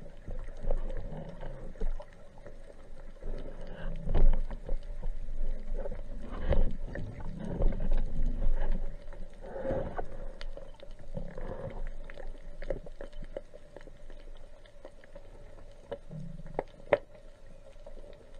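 Underwater sound as heard below the surface: muffled low rumbles and swishes of moving water, with scattered sharp clicks and crackles and a faint steady hum.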